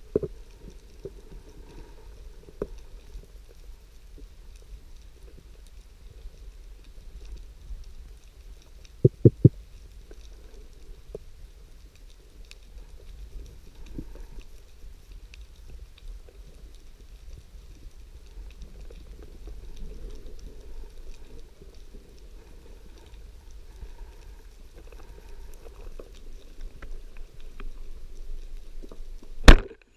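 Underwater ambience during a spearfishing dive: a steady low rumble with scattered faint clicks, three sharp clicks in quick succession about nine seconds in, and one loud knock near the end.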